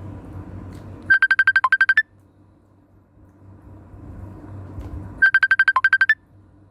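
A phone ringtone: a quick run of about ten short high beeps, one dipping lower and the last a little higher, played twice about four seconds apart.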